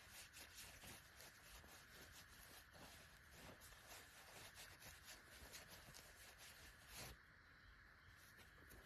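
Faint, quick back-and-forth rubbing of a cloth polishing a small pocket knife by hand, several strokes a second, stopping about seven seconds in.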